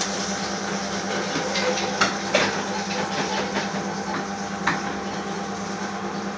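Kitchen background noise: a steady low hum with hiss, broken by a few short clicks and knocks about two seconds in and again past the middle.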